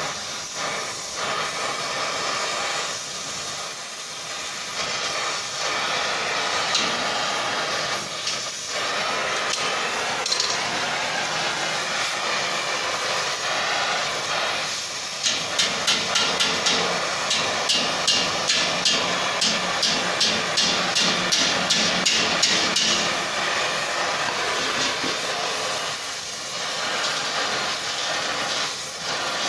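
Gas cutting torch flame hissing steadily as it heats a wrapped steel collar. About halfway through, a quick run of light ball peen hammer blows on the hot steel, roughly three a second for about eight seconds, tapping the wraps tight.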